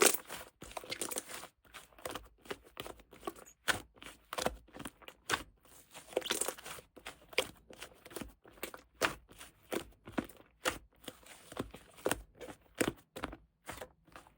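Hands squeezing and pressing slime, giving a run of irregular sharp clicks and crackly pops, a few a second.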